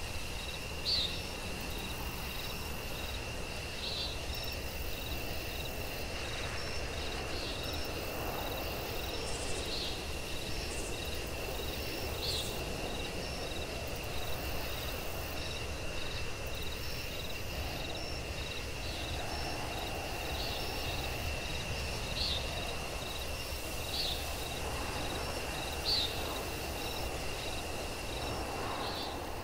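Insects chirping steadily: a constant high trill with now and then a sharper chirp standing out, over a low background hiss.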